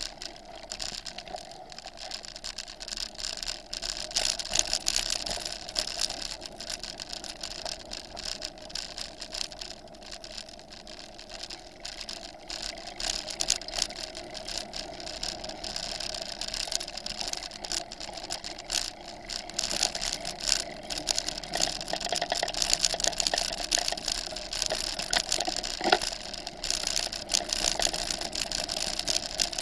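Bicycle riding along a forest road, heard from its handlebars: tyres rolling over the surface with constant rattling and knocking of the bike. It gets louder and rougher in the second half.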